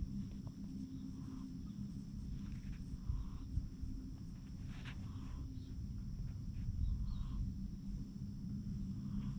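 Domestic cat purring in a low, steady rumble, with faint short higher sounds here and there.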